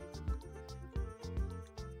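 Background music with a steady beat, about three beats a second, over a bass line and melody.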